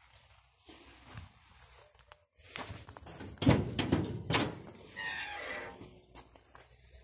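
The hood of a 1965 Ford Mustang being unlatched and raised: a run of metallic clunks and knocks about halfway through, then a creaking squeal from the hood hinges for about a second as the hood lifts.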